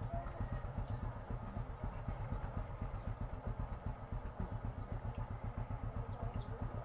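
A small engine idling steadily, a low, fast and even pulsing.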